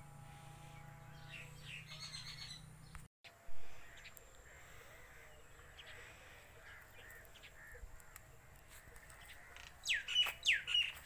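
Birds calling, ending in a quick run of about four loud, falling calls near the end. About three seconds in, the sound cuts out for a moment and a single loud bump follows.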